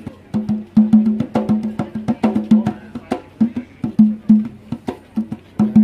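Conga drum played by hand in a fast rhythmic pattern, mixing ringing low open tones with sharp slaps.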